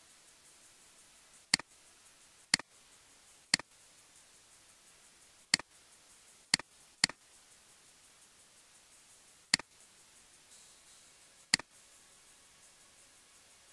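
Computer mouse clicks: eight sharp clicks at uneven gaps of about a second, two of them close together, over a faint steady hiss.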